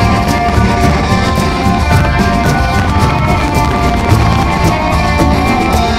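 Loud background music with a steady beat.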